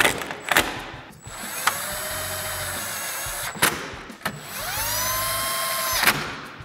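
Cordless 3/8-inch impact gun with a 10 mm socket tightening the grille's top bolts: the motor whirs in two runs, the second rising in pitch as it spins up and then holding steady, with sharp clacks in between.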